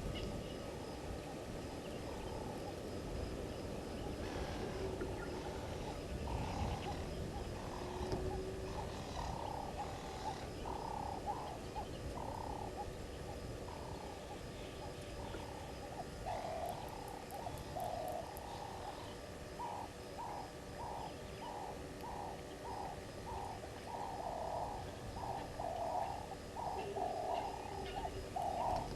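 A dove cooing: a long run of short coos, about two a second, that grows louder toward the end, over a low background rumble.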